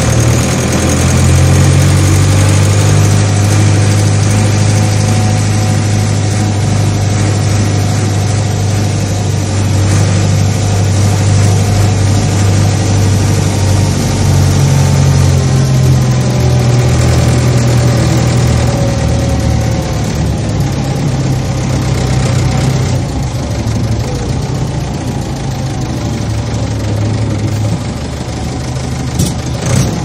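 Heavy farm-machine diesel engine running steadily with a deep, even drone; its pitch shifts slightly a few times.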